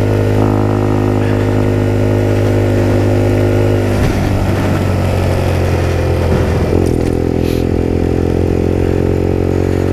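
Supermoto motorcycle engine running under steady throttle while riding at speed, recorded on board. Its note holds one pitch, turns rough and wavers for a few seconds around the middle, then steadies again.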